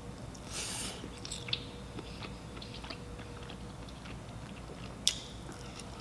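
A person chewing and biting into seafood from a seafood boil, recorded close up, with a short burst of mouth noise about half a second in and two sharp clicks, one near the middle-start and one near the end.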